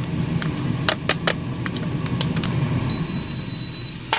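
Air fryer timer beeping once, a steady high tone lasting about a second near the end, signalling that the cooking cycle is done. Under it is a steady low hum, with a few light clicks about a second in and a sharp click right at the end.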